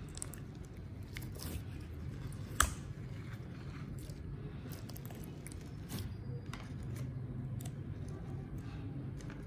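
Clear slime pressed, stretched and folded by hand: soft squishing with scattered sticky clicks and pops, and one sharp pop about two and a half seconds in, over low steady background noise.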